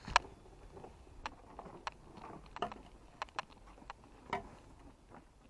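Footsteps: a string of light clicks and taps, about one or two a second, the sharpest just after the start.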